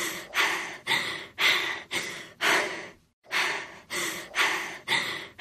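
A woman sobbing in short, breathy gasps, about two a second, with a brief break about three seconds in.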